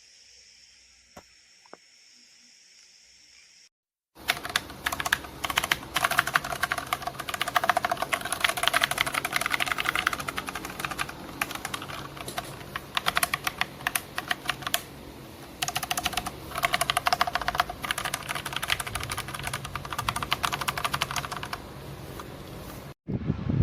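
Rapid typing on a Rakk Daug 96-key mechanical keyboard with yellow switches: a dense, fast run of key clicks with a couple of short pauses. It starts suddenly about four seconds in, after faint hiss, and stops just before the end.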